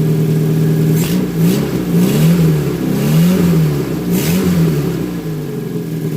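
Freshly rebuilt Renault 10 four-cylinder engine idling, then revved up and down about three times before settling back to idle. The owner says the exhaust is blowing a little and a loose tappet still needs adjusting.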